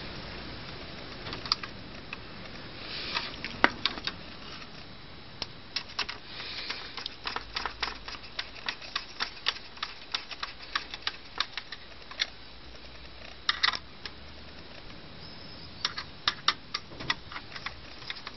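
Hand screwdriver driving screws into a DVD player's plastic disc-loader frame: irregular runs of small sharp clicks, few at first, densest through the middle and again near the end.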